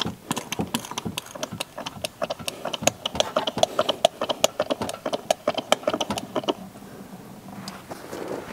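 Hand-operated fluid pump screwed onto a quart bottle, stroked quickly in a steady run of clicks, several a second, pumping CVT fluid through a hose into the transmission fill port. The strokes stop about six and a half seconds in.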